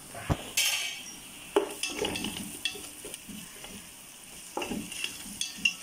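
Wooden spatula stirring and scraping browned onions and ginger-garlic paste frying in oil in a metal pot, with a sizzle and irregular knocks of the spatula against the pot.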